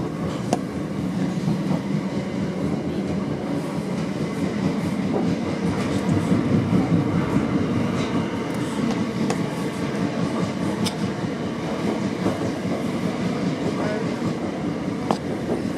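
Interior of a Class 455 electric multiple unit running along the line: a steady rumble of wheels and traction, with a few sharp clicks from the track.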